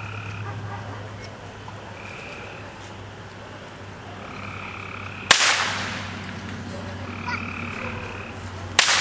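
Two blank-pistol shots about three and a half seconds apart, the gunfire test fired during heeling in IPO obedience to check the dog's gun sureness. A short, high call repeats about every two seconds in the background over a steady low hum.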